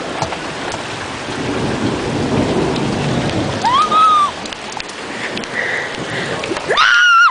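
Heavy rain pouring steadily while thunder rumbles through the middle. A person's voice calls out briefly about four seconds in and again just before the end.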